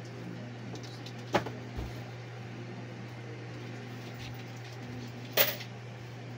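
Steady low hum, with two short sharp taps: one about a second and a half in and a slightly longer, louder one about five and a half seconds in.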